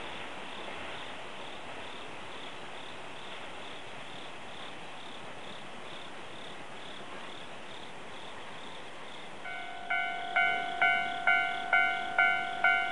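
Insects, likely crickets, chirping faintly in the night. About nine and a half seconds in, a Japanese level-crossing warning bell starts ringing, a loud clanging tone about twice a second, each strike dying away: the signal that a train is approaching and the barrier is coming down.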